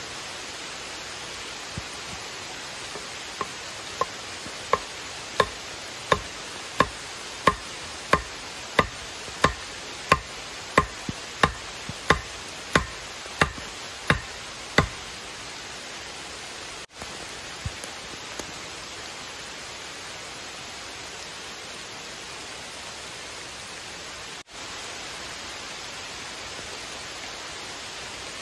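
A wooden stake being pounded into the ground: a regular run of about seventeen sharp knocks, roughly three every two seconds, from a few seconds in, with a few scattered lighter knocks after. A steady hiss of rain goes on underneath.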